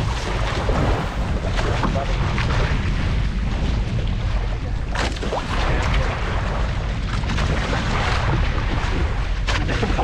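Wind buffeting the microphone on a boat at sea, over a steady low rumble, with water sloshing and gusting in short surges throughout.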